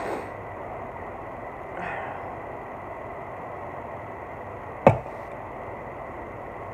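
Two soft breathy exhales, then one sharp knock about five seconds in as an aluminium soda can is set down on the tabletop.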